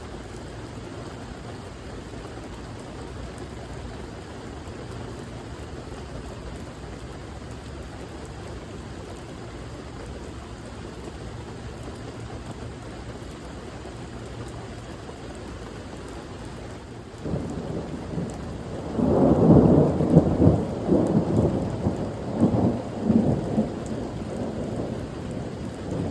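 Steady rain, then about two-thirds of the way through a thunderclap breaks in and rolls on as a low rumble in several surges, fading over the last few seconds.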